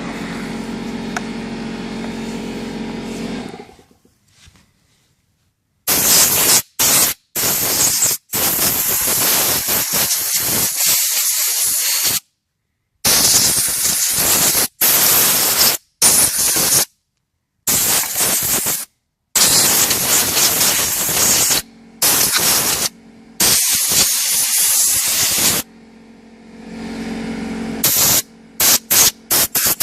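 An air compressor's motor runs steadily and cuts off about three and a half seconds in. Then a compressed-air blow gun fires loud hissing blasts in quick, abrupt on-off bursts, blowing sawdust out of a chainsaw. Near the end the compressor motor kicks on again under a few last short blasts.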